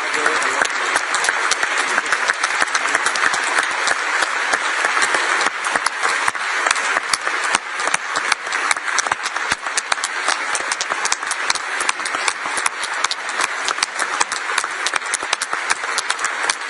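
A large crowd applauding, many hands clapping at once in a steady, unbroken ovation.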